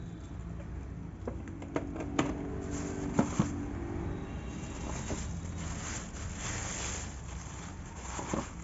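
Thin plastic wrapping crinkling and rustling as a plastic first-aid box is pulled out of it, with a few sharp clicks and knocks of plastic and cardboard being handled. A steady low hum sits underneath.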